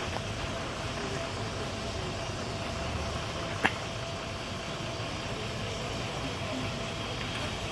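Helium gas venting from an MRI scanner's quench pipe during a controlled quench of its superconducting magnet: a steady rushing noise as the magnet's liquid helium boils off. A single sharp click about three and a half seconds in.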